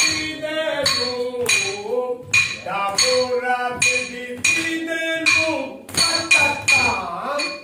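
A Yakshagana song sung by one voice in a gliding melody, kept in time by a pair of small bell-metal hand cymbals (tala) whose bright ringing strikes fall every half second or so.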